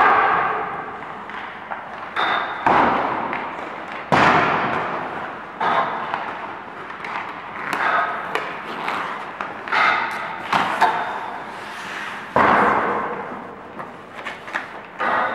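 Ice hockey practice on the rink: about eight or nine sudden knocks and scrapes of sticks, pucks and skates on the ice, each one echoing and fading over about a second.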